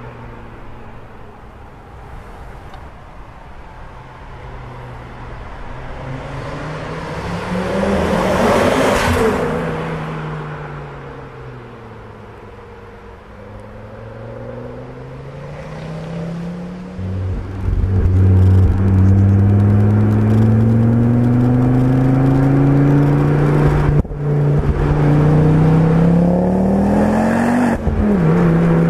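Stage 4-tuned Ford Focus RS with a BullX exhaust driving past, louder and rising in pitch as it comes near, then falling away. Then heard from on board, accelerating with the engine pitch climbing and two gear changes a few seconds apart, the second near the end.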